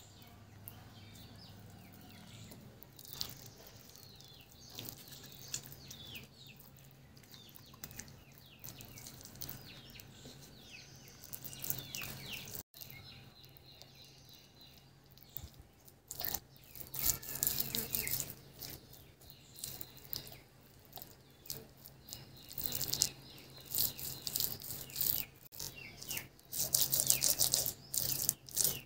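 Birds chirping and tweeting repeatedly over a low steady hum. From about halfway, louder irregular bursts of noise join in.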